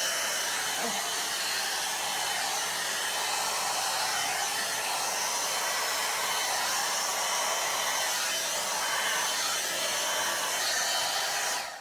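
One-step hot-air brush hair dryer running with a steady blowing rush of air, switched off just before the end.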